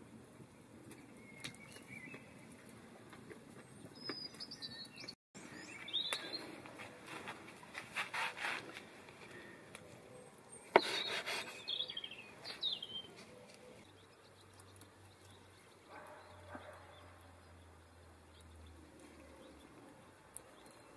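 Small birds chirping now and then, with a knife slicing through crusty patties and knocking on a wooden cutting board; the sharpest knock comes about eleven seconds in.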